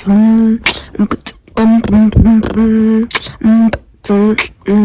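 Background music: a song with a repeated, held vocal-like melody over sharp percussive hits.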